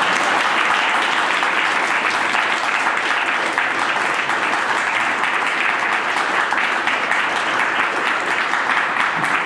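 A seated audience of a few dozen people applauding steadily at the close of a talk.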